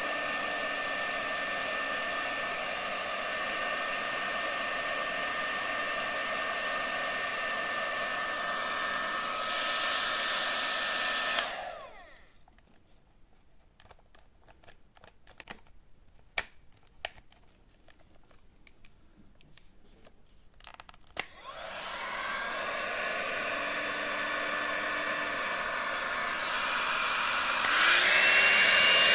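Rowenta CF9550F0 hot-air brush running with a steady blowing whine. It is switched off about a third of the way in and winds down, leaving a few sharp clicks in the quiet. It is then switched back on, winds up again, and near the end steps up to a louder, higher-pitched speed setting.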